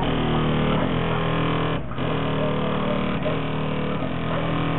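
Bass-heavy music played loud through a car stereo's two 15-inch Kicker L7 subwoofers, heard from outside the vehicle, with a steady deep bass line and a brief break in the upper sounds about two seconds in.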